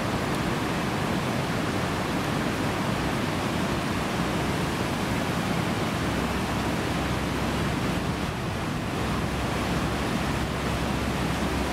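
River water rushing and churning over a cascade of white water, a steady loud noise with no breaks. A little more low rumble comes in about halfway through.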